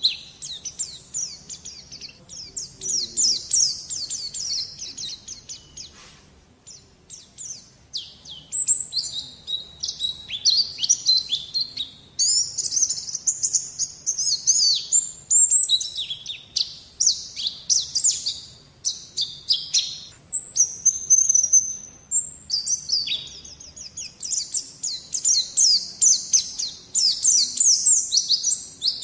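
White-eye (pleci) singing: long, rapid runs of high twittering chirps, broken by short pauses, with a brief lull about six seconds in.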